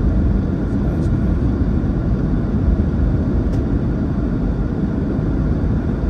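Steady low rumble of a car driving along a snow-covered highway, tyre and engine noise heard from inside the cabin.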